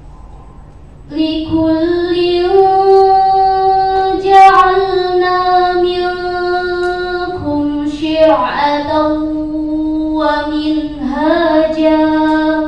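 A teenage girl's voice reciting the Qur'an in the measured murattal style, entering about a second in with long, held melodic notes, the pitch dropping and shifting at a couple of phrase breaks.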